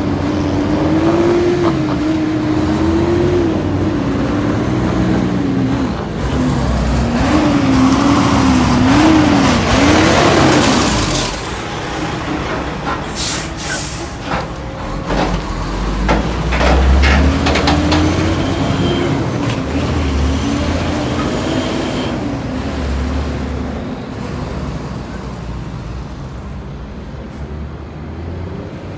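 Semi truck's diesel engine running and pulling, its pitch wavering up and down. There is a loud burst of air hiss about ten seconds in, then several short air hisses and clicks, typical of a truck's air brakes.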